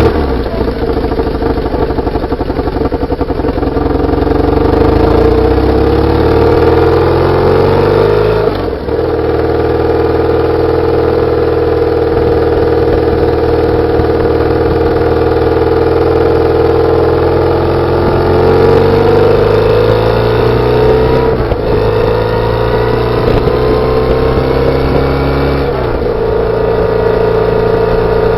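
BMW R850R's air/oil-cooled boxer twin under way, heard from beside the exhaust: the engine note climbs steadily for about eight seconds, dips briefly at a gear change, then runs at a steadier pitch, changing again twice near the end.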